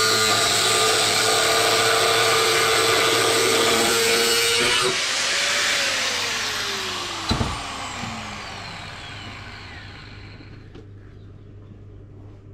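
Angle grinder with a cutting disc cutting through the steel shell of a fridge compressor, then switched off about five seconds in, its whine falling in pitch as the disc spins down. A single knock comes partway through the spin-down.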